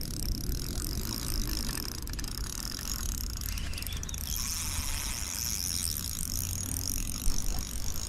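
Spinning reel being wound in steadily while a hooked trout is played, a fine whirring that grows stronger about halfway through, over a constant low rumble.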